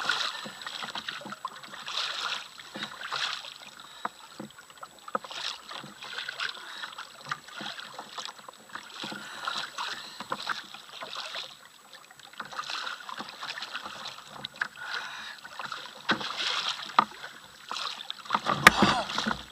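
Choppy sea water splashing and slapping against the hull of a sit-on-top fishing kayak, in uneven waves of noise with scattered small knocks and clicks, and a louder burst near the end.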